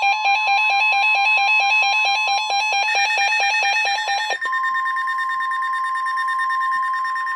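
Weather-radio alert: a steady single warning tone, the NOAA Weather Radio 1050 Hz alarm, sounds throughout, layered with rapid electronic beeping of about eight beeps a second that stops about four and a half seconds in. The tone heralds a tornado warning broadcast.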